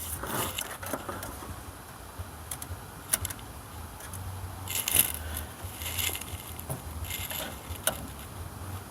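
Light metallic clicks and clinks of small tools and loose parts being handled, in a few short bursts about halfway through, over a faint steady hum.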